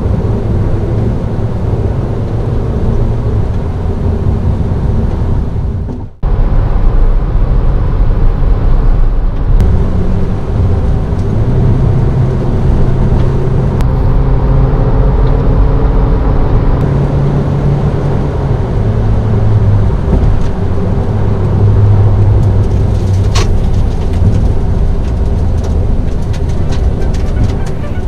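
Kia Cerato Forte driving on the road, heard from inside the cabin: a steady engine drone and road noise, with the engine's pitch rising and falling as speed changes. The sound cuts out sharply for a moment about six seconds in, then carries on.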